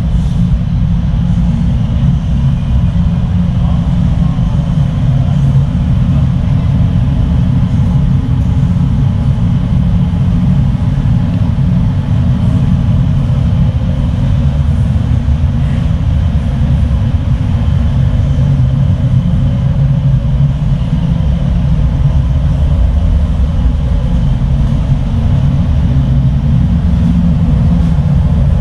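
Steady low drone of a passenger ferry's engines and machinery, heard on board at a constant level.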